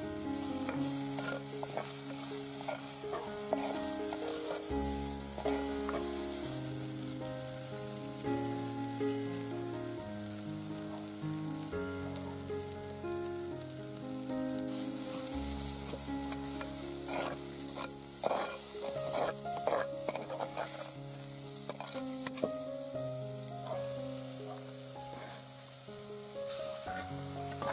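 Onions, green chilies and tomato sizzling in oil in a clay pot, with the scrape of a wooden-handled spoon stirring, the scrapes bunching up about two-thirds of the way through. Soft instrumental music with long held notes plays underneath.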